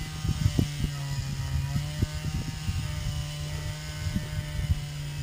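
Wind buffeting the microphone in irregular low thumps, over a steady low motor drone from an engine running somewhere on the ice.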